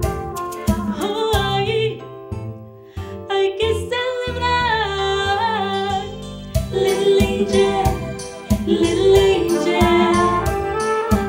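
A woman singing a soulful song into a microphone over a band backing of drum hits and bass, with a brass horn (flugelhorn) playing alongside. The accompaniment thins out briefly about two seconds in before the full beat returns.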